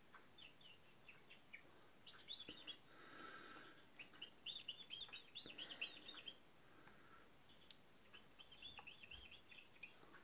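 Common chaffinch song, faint, in three short runs of quick high notes.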